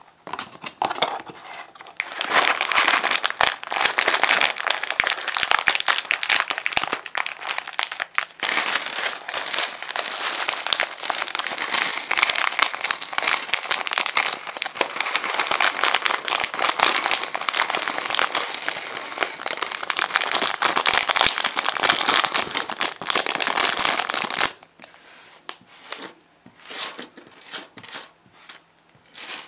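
Clear plastic bag holding small plastic building bricks being handled and opened, crinkling loudly and continuously. Near the end the crinkling stops and only a few scattered light clicks remain as the bricks are tipped onto the table.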